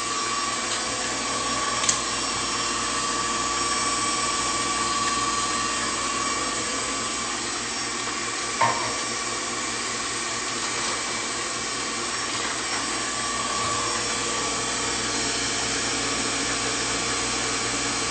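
Electric stand mixer running steadily, beating oil and eggs together, with a constant whirr. Two short clicks come about two seconds and eight and a half seconds in.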